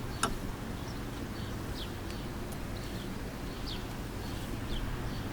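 Short, falling bird chirps repeat about once a second over a steady low background hum, with one sharp click just after the start.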